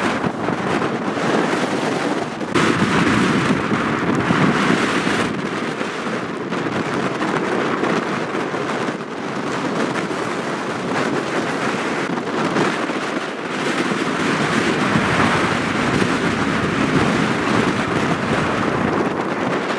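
Burning brush crackling and popping in a wildfire, a steady dense crackle over a rush of wind on the microphone.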